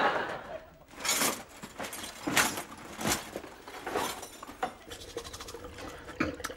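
Glass bottles clinking and knocking as they are grabbed off a table and bundled into a holdall, with rustling and several sharp clatters about a second apart. A faint steady hum sets in after about five seconds.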